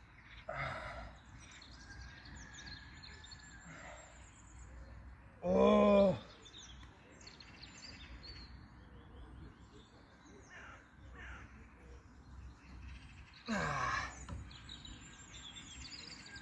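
Small songbirds chirping and tweeting, with a brief, louder pitched call about halfway through and another short falling call near the end.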